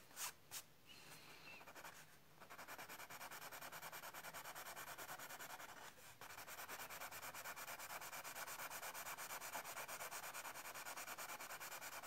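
White Conté crayon scratching across tan card in fast, even back-and-forth strokes, laying in the white highlights of a portrait. A couple of light taps come in the first second, and there is a short break about halfway through.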